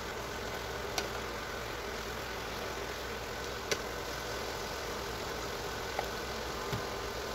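Steady hiss of vegetables cooking in a frying pan, with a few light clicks of a wooden spatula against the pan.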